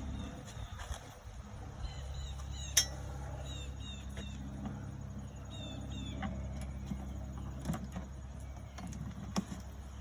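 Bungee cords being hooked onto a bin and cart: scattered clicks and taps, the sharpest about three seconds in, over a steady low hum.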